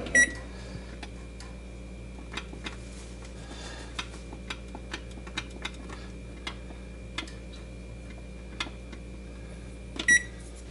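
Magic Chef electric range's control panel being set: a short electronic beep at a key press, then soft irregular clicks as the timer button is pressed again and again, and another beep about ten seconds in. A steady low hum runs underneath.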